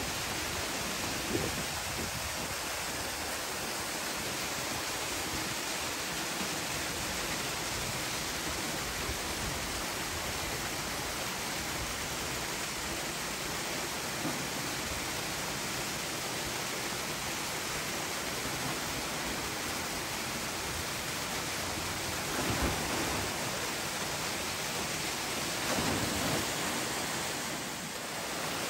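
Steady rushing noise with no distinct events, rising briefly a little louder twice near the end.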